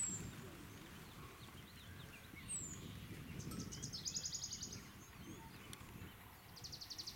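Outdoor bush ambience: a bird's high, rapid trilling call comes twice, at about three and a half seconds and again near the end, with a few short high chirps. Under it runs a low, uneven rustling.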